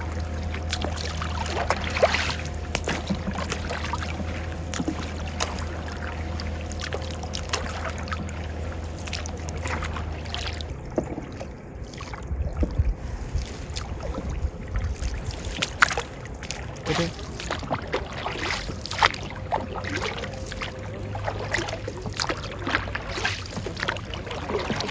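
Canoe paddles dipping and splashing in the water, with sharp knocks against the hull, over a steady low hum that drops away about ten seconds in and returns near the end.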